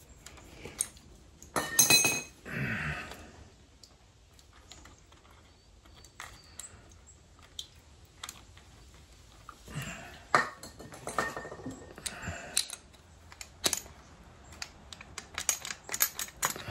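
Metal tools and parts clicking and clinking while a seized throttle linkage on a 2003 Harley-Davidson V-Rod is worked free. One louder metallic clank rings briefly about two seconds in, and a quick run of clicks comes near the end.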